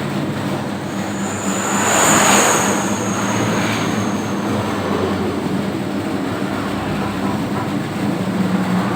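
Homemade 3 kg dough mixer running steadily, its electric motor and drive giving a low mechanical hum. About two seconds in a louder whooshing swell with a high whine rises and fades.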